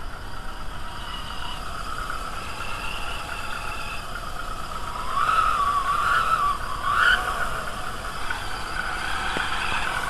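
VW 2.0L ABA four-cylinder engine running, with a wavering whine from the timing belt tensioner that grows louder about halfway through. The noisy tensioner is the fault being shown.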